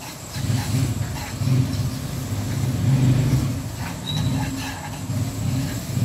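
Plastic spatula stirring and scraping wheat flour and ghee around a non-stick kadai on a gas stove: an uneven, low rumbling scrape that swells and fades with the strokes. This is the dry roasting of the atta in ghee.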